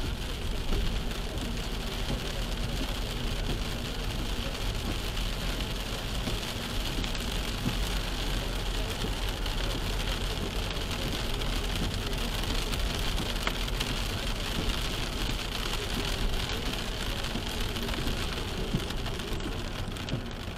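Steady heavy rain on a moving car, heard from inside the cabin, mixed with the hiss and rumble of tyres on the wet road.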